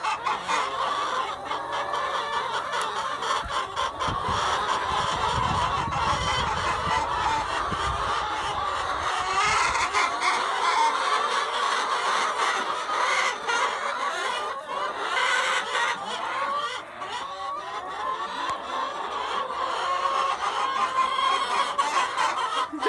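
A flock of domestic chickens clucking and calling over one another, eager for treats. From about 3 to 10 seconds in, a low rumble of wind or handling on the microphone runs under them.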